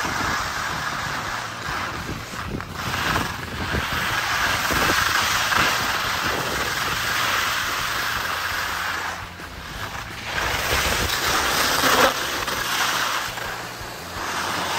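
Wind buffeting the microphone: a loud, noisy rush that swells and dips, easing off briefly about nine seconds in.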